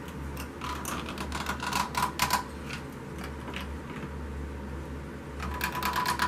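Runs of quick sharp clicks as a toilet seat's hinge bolt is tightened down with a hand tool, the fastest run near the end, over a steady low hum.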